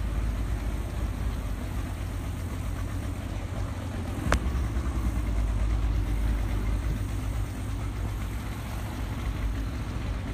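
Engine of the vehicle carrying the recorder running at low speed, a steady low rumble. A single sharp click about four seconds in.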